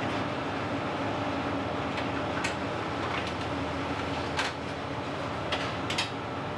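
Steady drone of a fishing boat's engine and machinery with a constant low hum, and several sharp clinks of a metal spatula against a steel frying pan from about two seconds in.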